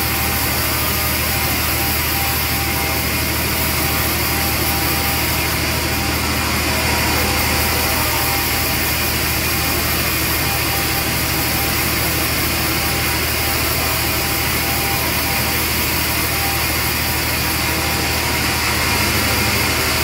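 Large industrial band sawmill running steadily as a log is fed through the band blade on its carriage. It is a loud, unchanging mechanical drone with several constant tones over a continuous rush of cutting noise.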